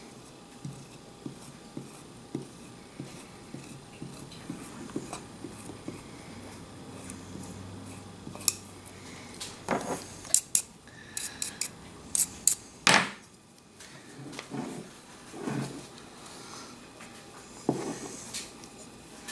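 Skiving knife shaving down deer hide around the eye, light scratchy strokes of the blade on the skin, with a run of sharp metallic clicks and taps about halfway through.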